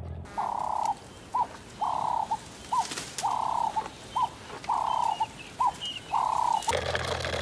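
An animal calling in a steady rhythm: five held notes, each followed by a short chirp, at about one pair every one and a half seconds.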